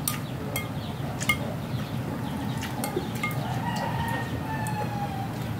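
A rooster crowing once in the background, one long call with a slight fall in pitch in the second half. Before it, a spoon clinks a few times against a glass serving bowl.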